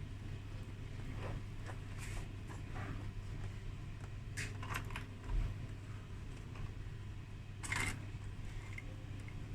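Scattered small clicks and scrapes of hard parts being handled and fitted, with a dull thump about five seconds in and a longer scrape near the end, over a steady low hum.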